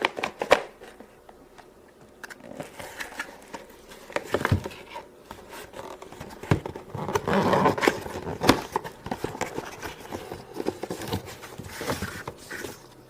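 A cardboard toy box being opened and its contents pulled out by hand: irregular clicks, knocks and scrapes with rustling packaging, busiest around the middle.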